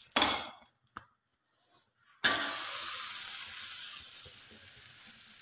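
Makki ki roti (maize-flour flatbread) sizzling in ghee on a hot tawa: a steady high hiss that starts abruptly about two seconds in, after a brief hiss and a click and a near-quiet gap.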